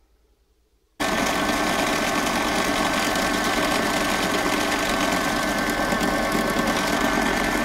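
A small bench drill press runs steadily with a motor whine while its bit drills through the spot-welded tabs on lithium-ion cells. It comes in abruptly about a second in, after near silence.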